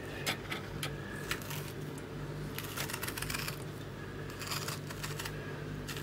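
A small hand tool scraping and digging into the flesh of a raw turnip to hollow it out: irregular scrapes and clicks, with a few longer scraping strokes.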